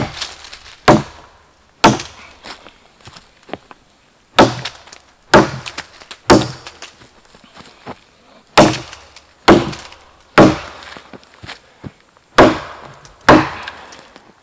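Hand-forged axe chopping into a log lying on the ground to cut it in two: eleven sharp strikes of steel biting wood, in runs of three about a second apart with short pauses between.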